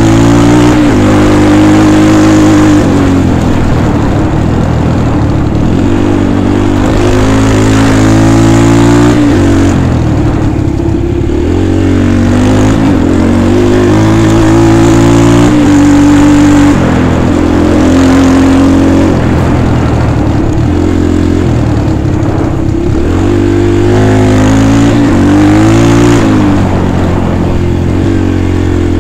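Dirt bike engine running hard while being ridden, its pitch climbing and dropping again and again with the throttle.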